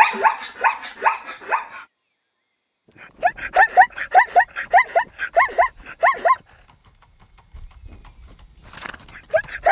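Zebra calling: runs of short barking calls, each rising then falling in pitch, about three a second, in three bouts separated by short pauses.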